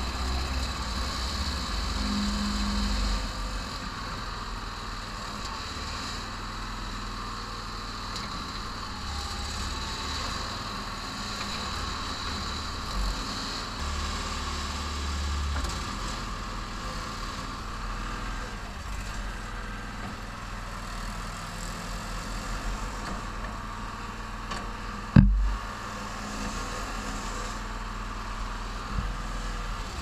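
Homemade backhoe excavator's engine running steadily while the hydraulic arm digs, swelling louder a couple of times under load. Late on, one sharp loud knock.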